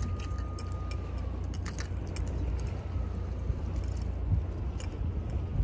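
Steady low rumble of wind on the microphone, with a few faint light clicks and a thin high tone that fades away about a second in.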